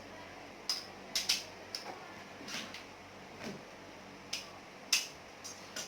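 Scattered sharp clicks and taps, about ten in six seconds at uneven spacing, as a parcel's packaging is handled and worked open.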